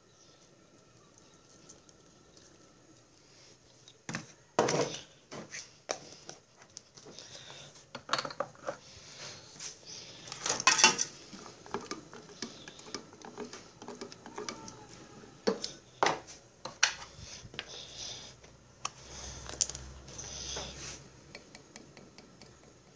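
Dishes and cutlery clattering and clinking in irregular knocks and scrapes, starting about four seconds in, with the loudest cluster about eleven seconds in.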